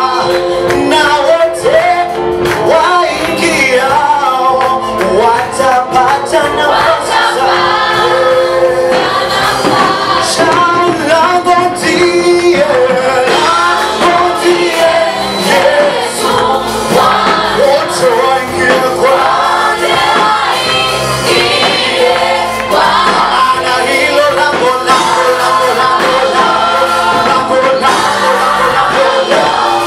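A congregation and praise team singing a Swahili gospel praise song with music.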